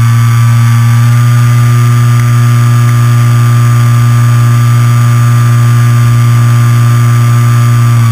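Brushless outrunner motor (NTM 35-42A 1250Kv) spinning a 10x7 three-blade pusher propeller on an RC foam plane, heard from the onboard camera and held at a steady high throttle in one loud, even pitch. The pitch dips slightly at the very end as the throttle eases.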